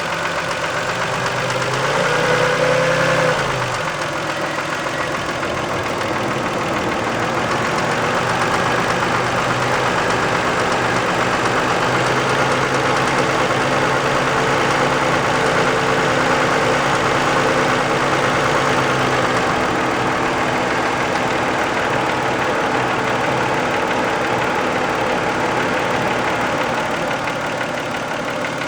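1990 Toyota Camry's 2VZ-FE V6 idling with a rapid knock, blipped briefly to higher revs about two seconds in, then settling back. The owner's best guess for the knock is sludge or varnish on a valve shim/bucket.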